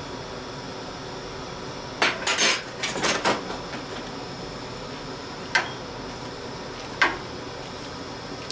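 A spoon clinking and scraping against a stainless steel pot as dry spaghetti is pushed down into the water. There is a quick run of clinks about two seconds in, then two single clinks a second and a half apart, over a steady hiss.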